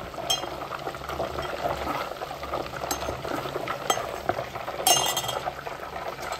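Homemade ghee sizzling and crackling in a metal pan as it is stirred with a steel spoon, with a few sharp clinks of the spoon against the pan; the butterfat has separated from the milk solids, so the ghee is done.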